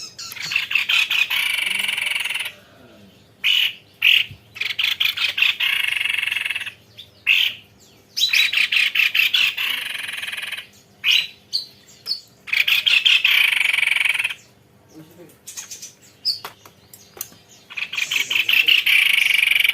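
White-necked babbler singing its long rolling song: repeated bursts of fast rattling trill, each a second or two long, with brief pauses between.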